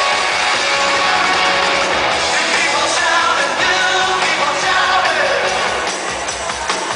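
Recorded rock song with a singing voice, played loud; it dips a little in level near the end.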